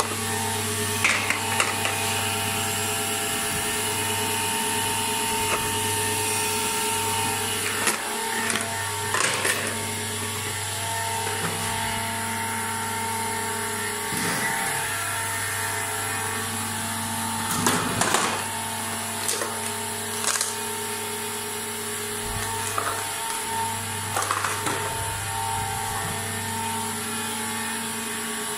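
Bizerba GLM-I weigh-price labeller running: a steady motor hum from its conveyor belts, with a few short clicks and rattles now and then as a tray passes along.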